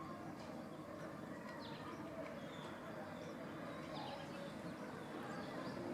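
Birds chirping: scattered short, high chirps over a steady background hum.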